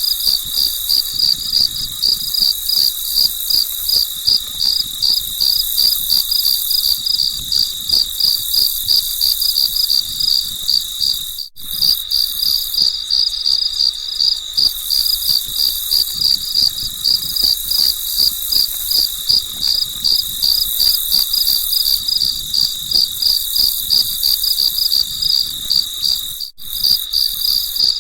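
Crickets chirping in a steady, even rhythm, about three chirps a second, with a faint high hiss behind them. The chirping cuts out for an instant twice, like the seam of a looped recording.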